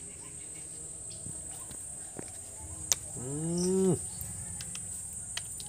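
Steady high-pitched chirring of crickets. About three seconds in there is a sharp click, then a single drawn-out vocal sound lasting about a second, the loudest sound here.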